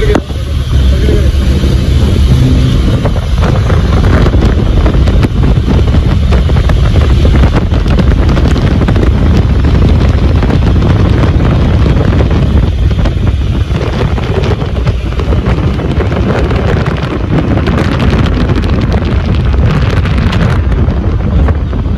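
Wind buffeting the microphone in a loud, steady rumble while riding a moving chairlift, with small crackles running through it.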